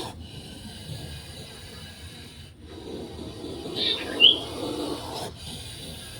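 A low, rasping, snore-like sound begins a little under three seconds in and lasts about two seconds, which the recorder takes for an angry snake. A short high chirp cuts in about four seconds in.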